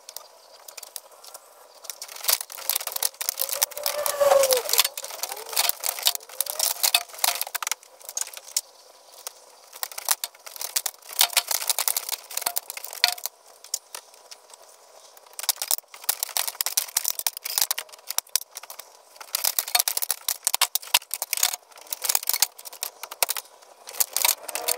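Old roof slates being stripped off a barn roof, clinking and clattering in irregular bursts of sharp clicks.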